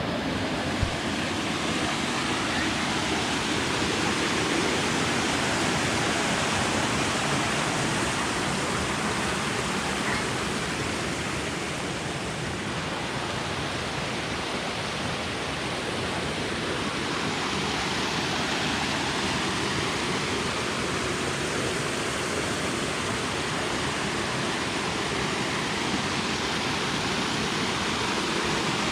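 Steady rush of falling water from the fifth tier of Erawan waterfall.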